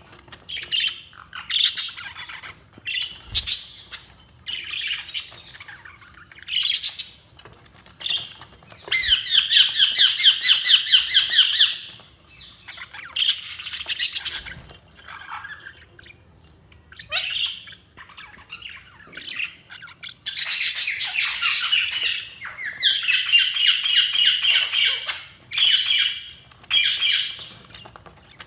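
Budgerigars chirping and chattering in bursts of rapid warbling, the longest runs lasting two to four seconds, with short quieter gaps between.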